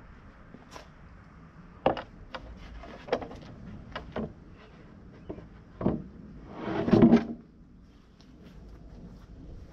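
Scattered knocks and taps of wood being handled during hand sanding of a red oak desktop, with one longer, louder scrape about seven seconds in.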